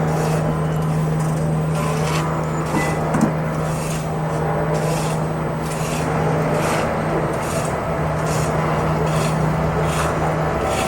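Steady mechanical hum with a raspy scraping that repeats about twice a second.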